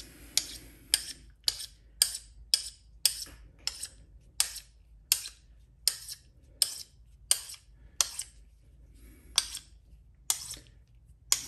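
A small magnet stroked again and again along a steel screwdriver shaft to magnetize it, making a sharp metallic click each time it meets the steel, about two clicks a second with a brief pause near the end.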